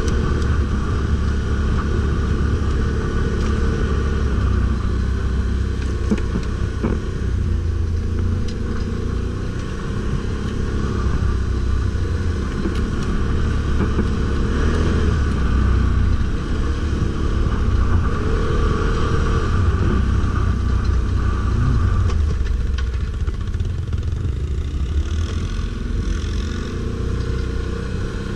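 Stels Guepard 850 ATV's engine running steadily at a loud, constant level while being ridden off-road, with a deep low rumble and an occasional brief knock.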